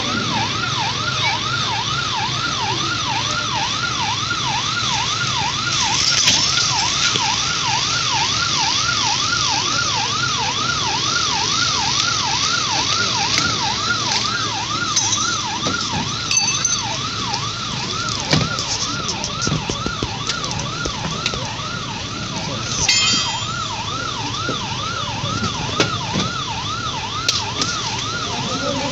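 Emergency-vehicle siren on a fast yelp, its pitch sweeping up and down about twice a second without a break, with scattered sharp knocks.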